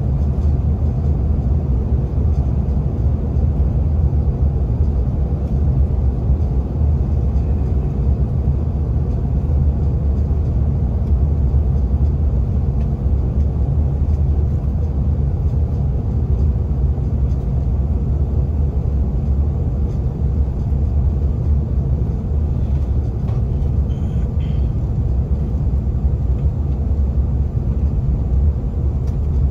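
Steady low rumble of cabin noise inside a CRJ-900 regional jet in flight: airflow and the rear-mounted General Electric CF34 turbofans.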